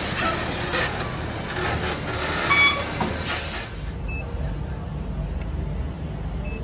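Heavy diesel vehicle idling, a low steady rumble, with a brief horn-like toot about two and a half seconds in. In the second half, two short electronic beeps from a fuel dispenser keypad being pressed.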